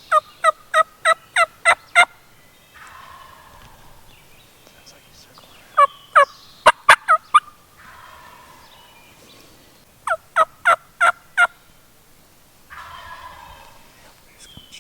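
Turkey yelping in three series of five to seven sharp, falling notes, with softer, lower calls between the series.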